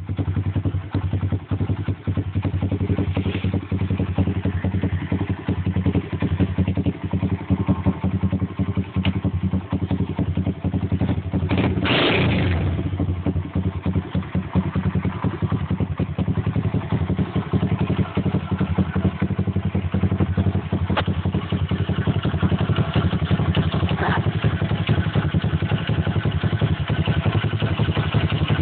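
A Stomp pit bike's single-cylinder four-stroke engine idling steadily, with a fast, even beat of firing pulses.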